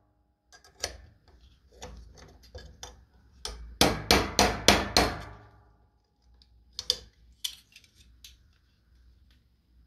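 Hammer blows on a rivet: a few light taps, then a run of about six hard strikes in quick succession in the middle, then two more knocks. A soft brake-lining rivet is being peened over to close it.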